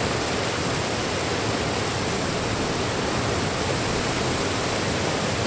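Steady, loud rush of a weir waterfall close by: water pouring over the falls onto rocks.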